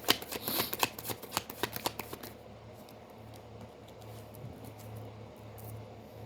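Tarot cards being shuffled: a quick run of sharp card clicks for about two seconds, then only a faint steady low hum.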